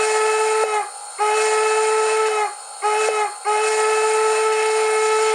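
TCS WOW Sound steam decoder playing a Norfolk & Western single-chime steam whistle through a model locomotive's speaker: four steady blasts of one pitch, long, long, short, long, the grade-crossing signal. A faint steady hiss lies under it.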